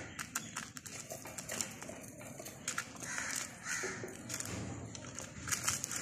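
Caged zebra finches calling in a rapid run of short chirps, mixed with small clicks.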